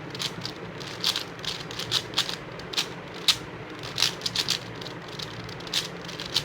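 5x5 Rubik's cube being turned quickly through an algorithm: its layers click and clack in an irregular run, several turns a second.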